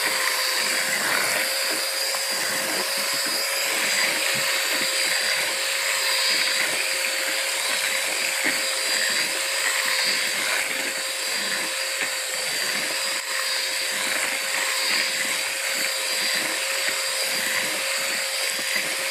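Electric hand mixer (Miyako) running steadily with a constant whine, its beaters whisking duck eggs and sugar into a foam in a plastic bowl.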